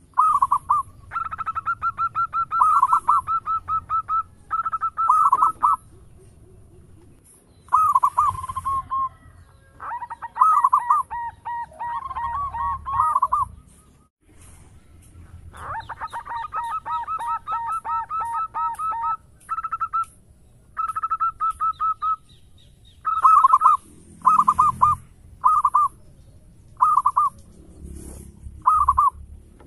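Zebra dove (perkutut) cooing: long phrases of rapid, pulsed staccato notes, then in the last third short separate coos about once a second.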